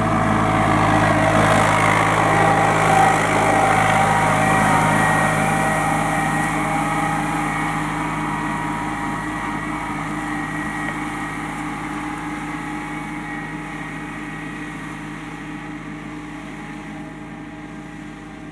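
New Holland compact tractor's diesel engine running steadily as it pulls a harrow through arena sand. It is loudest about three seconds in as it passes close, then fades steadily as it drives away.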